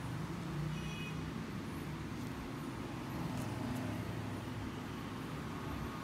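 Steady low background rumble of the kind PANN files as road traffic, with a brief faint high tone about a second in.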